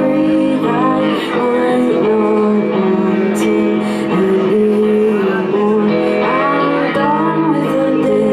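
A woman singing live into a microphone, accompanied by her own electric guitar playing held chords.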